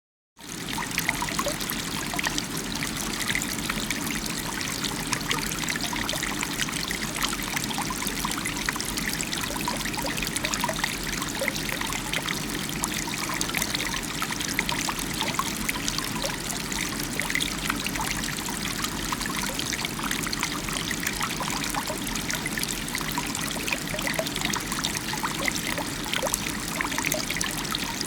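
A small stream flowing and babbling steadily, with many small splashes and gurgles over a constant rush of water.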